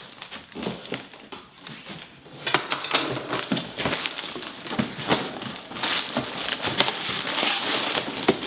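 A cardboard box of LEGO parts being opened and its plastic bags and contents handled: crinkling and crackling with many small clicks. It is light for the first couple of seconds, turns dense about two and a half seconds in, and grows louder near the end.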